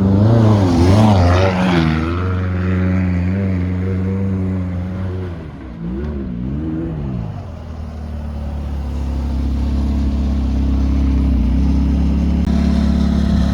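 McLaren 570S's twin-turbo V8 revving, its pitch rising and falling several times in the first couple of seconds. It rises and falls once more about six seconds in, then settles into a steady low running note.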